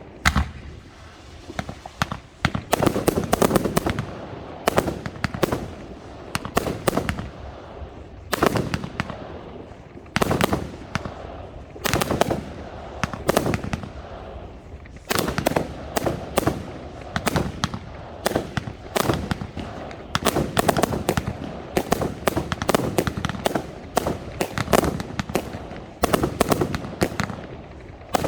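Large fireworks going off in a continuous barrage: rapid, irregular clusters of sharp bangs and crackles with rumbling echo between them.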